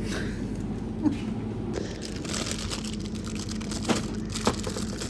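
Snack packets being handled and loaded into a vending machine: plastic wrappers crinkling with a few sharp knocks, over a steady low hum.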